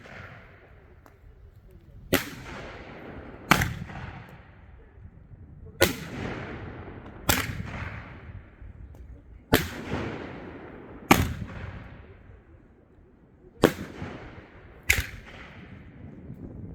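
Aerial fireworks going off in a repeating sequence: eight sharp bangs in four pairs, the two bangs of each pair about a second and a half apart, each trailing off into a fading echo.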